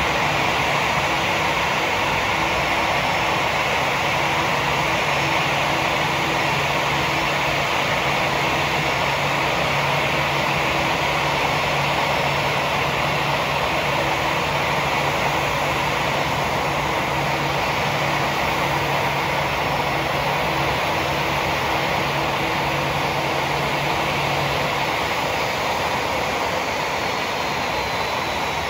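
Airbus A319's two jet engines running at taxi idle: a steady whine and rush with a low hum under it. Near the end the low hum stops and a faint high whine slowly falls in pitch.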